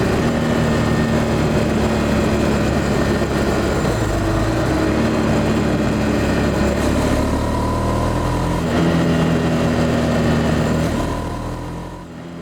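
Honda CB300F Twister's single-cylinder engine running on the move, its pitch stepping up about nine seconds in. The sound fades out near the end.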